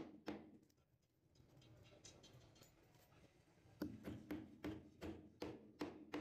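Claw hammer tapping a nail into a wooden batten laid on a plank board: a quick run of short, light knocks, about four a second, starting a little before halfway through.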